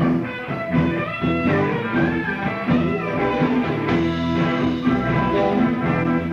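Rock band playing, with guitar prominent.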